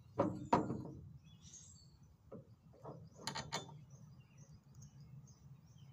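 Metal ramp plate knocking and clinking against the bolts and wooden board as it is fitted over the bolts: two sharp knocks right at the start, then a few lighter clinks around two to three and a half seconds in.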